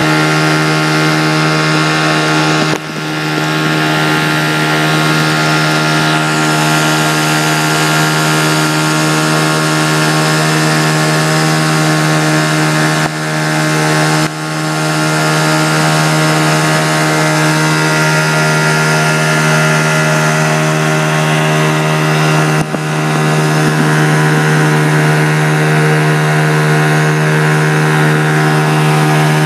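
Mercury outboard motor running steadily at speed, pushing a raft: an even, unbroken engine drone with a few brief dips in loudness.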